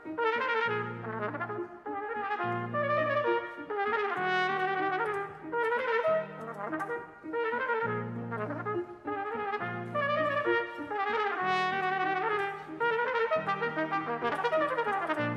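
Solo trumpet playing rapid runs of short notes in a virtuoso variation, over piano accompaniment with low bass chords struck at a steady pulse.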